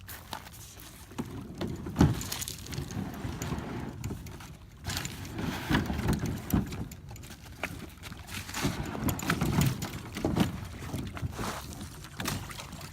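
Irregular hollow knocks, bumps and scrapes of a plastic Sun Dolphin Excursion kayak and its paddle being shuffled over rocks at the water's edge, with a sharp knock about two seconds in.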